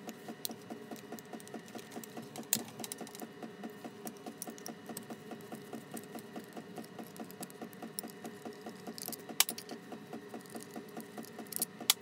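A small power tool's motor running steadily with a quick, even pulse of about four beats a second while the starter motor's mounting bolts are undone; it cuts off suddenly at the end.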